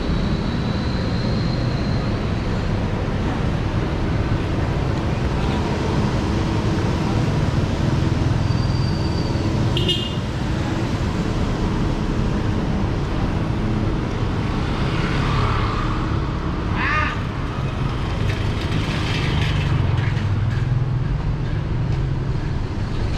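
Street ambience: a steady low rumble of traffic, with a single click about ten seconds in and a few short high chirps about two-thirds of the way through.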